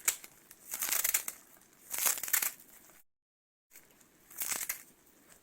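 Three short crunchy, scraping noises of food being handled, most likely bean sprout rice being stirred and scooped. A brief cut to dead silence falls in the middle.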